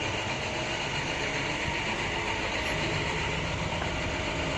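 A steady mechanical hum with faint steady tones running through it, unchanging throughout.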